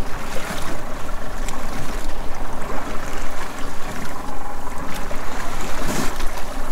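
Steady sea noise at the stern of a boat at sea: water sloshing against the hull, with wind rumbling on the microphone, and a brief louder rush near the end.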